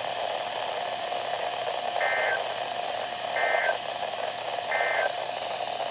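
Weather radio receiver playing three short bursts of EAS SAME digital data tones, a buzzy two-tone squawk, about a second and a third apart over steady radio hiss. Bursts this short are the end-of-message code that closes an alert.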